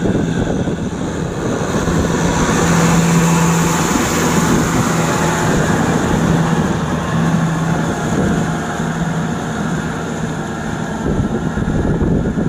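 Kubota M6040SU tractor's diesel engine running steadily under load as it pulls a rotary tiller through wet paddy mud. Its low hum swells and fades in a regular pulse through the middle.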